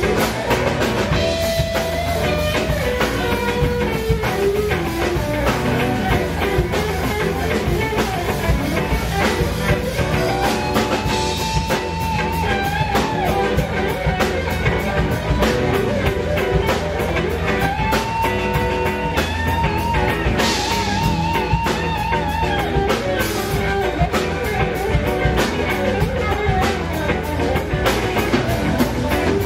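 Live blues-rock band, led by a Les Paul-style electric guitar playing a lead line with bent, sustained notes and vibrato over a steady drum-kit beat.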